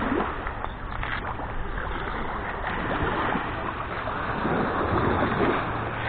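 Gentle sea surf: small waves breaking and washing up on a sandy, shell-strewn shore, swelling and easing in soft rushes.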